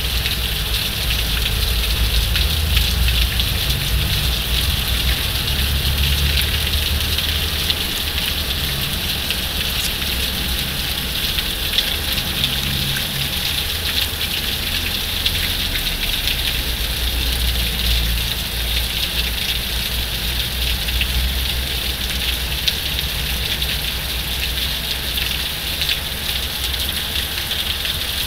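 Heavy rain pouring steadily, a dense even hiss, with a low rumble underneath that swells and fades.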